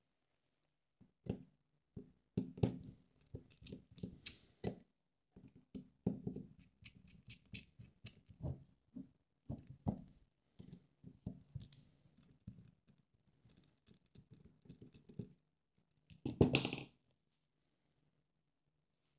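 Small screwdriver clicking and scraping in the mounting screws of a brushless drone motor on a carbon-fibre arm, with small taps as the parts are handled. A louder handling noise lasts about a second near the end.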